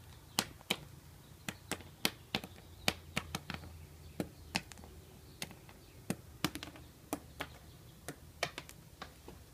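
Sharp popping clicks at an irregular pace, about three a second, like knuckles cracking, from an insecticide-sprayed moth on a painted wooden deck floor. It makes a pop each time it bends sharply in the middle and flips or jumps.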